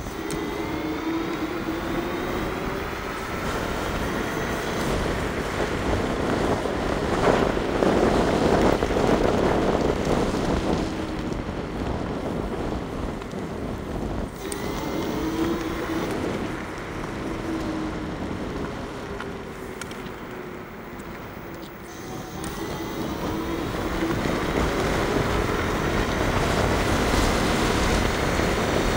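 Bluetran Lightning electric scooter at speed: its motor whines, the pitch rising and falling as it speeds up and slows, under a steady rush of wind on the microphone that swells loudest a few seconds in.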